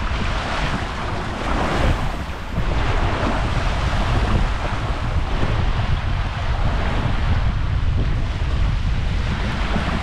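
Water rushing and splashing under an inner tube sliding down a waterslide, with steady wind buffeting the microphone. There is a brief lull about two seconds in.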